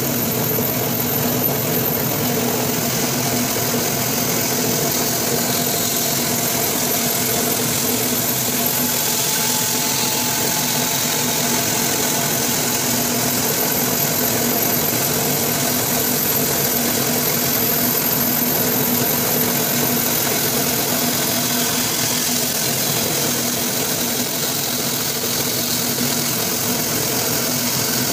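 Bandsaw running steadily, its motor humming under a steady hiss, as the blade cuts slowly through a thick block of ebony hardwood.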